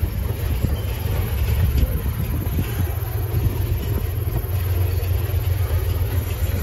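A train of coal hopper cars rolling past, a steady low rumble with a few faint clicks from the wheels and couplers.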